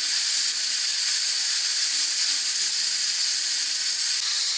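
Steam hissing steadily and evenly from a cooking pot, a loud high hiss with no breaks.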